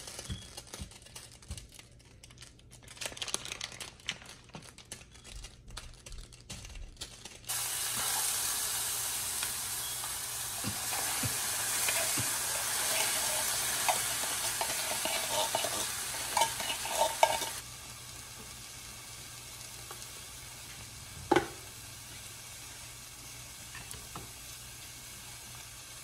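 Canned chili sizzling in a small hot frying pan while a spoon stirs and scrapes it. Loud at first, it drops to a softer steady sizzle for the last third. Before it, light clicks and knocks come from pans and hot dogs being handled.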